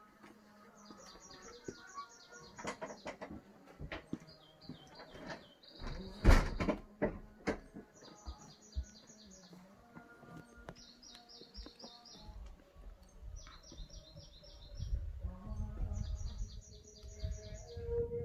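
A songbird sings a short phrase of rapid, high repeated notes, over and over, every two to three seconds. A few sharp knocks come about six seconds in, and a low rumble rises near the end.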